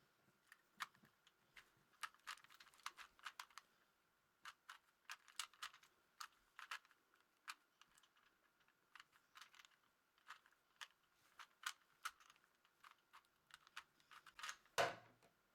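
Faint, rapid, irregular clicking of a 3x3 Rubik's Cube's plastic layers being twisted, with one louder knock near the end.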